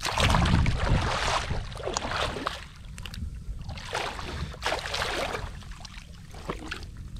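Water splashing and sloshing at the side of a small boat as a gill net is worked, in bursts about a second in, around two seconds and again around four to five seconds, over a steady low rumble.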